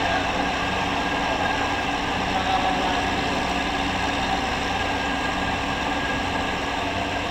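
Steady mechanical drone of an industrial basket fryer line running, a continuous hum with a few held tones over an even rushing noise.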